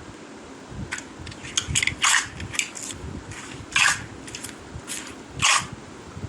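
Slime being handled, making a series of short wet pops and crackles, the loudest about two, four and five and a half seconds in, with smaller clicks between.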